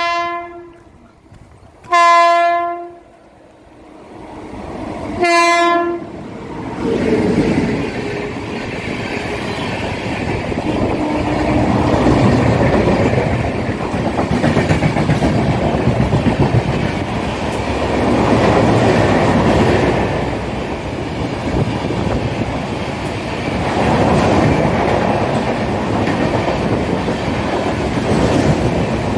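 Indian Railways electric locomotive horn, three single-note blasts in the first six seconds, the last one short. Then an express train races through the station, its coaches passing in a loud, steady rush and rumble of wheels on rail.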